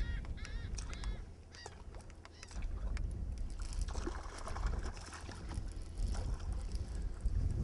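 A run of short, repeated honking bird calls during the first couple of seconds, fading out. Wind buffets the microphone throughout, with a rush of noise about four seconds in.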